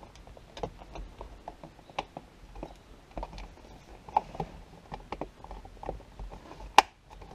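Rear-view mirror and its plastic trim shroud being handled and fitted by hand: a run of small plastic clicks and taps, with one sharp click near the end.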